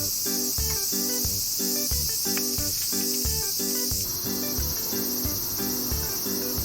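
Background music with a steady beat and repeating chiming notes, over a steady high-pitched hiss.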